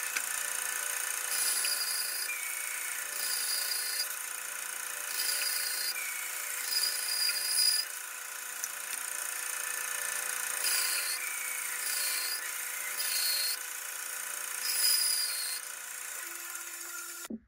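Hand saw cutting through a square wooden bar, with rasping back-and-forth strokes about once a second and a short pause in the middle.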